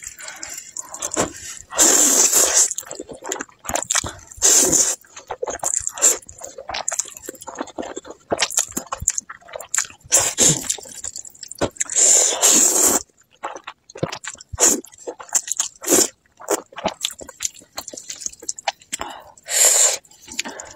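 Close-miked noodle eating: several long hissing slurps of saucy noodles, about a second each, between fast wet chewing and lip smacking.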